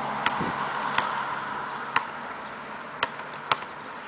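Basketball dribbled on an asphalt court: five sharp bounces about a second apart, the last two closer together, over a steady background hiss.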